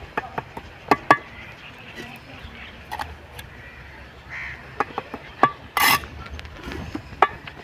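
Bricklaying trowel work: irregular sharp taps and knocks of steel on brick and mortar, with a short scrape about six seconds in.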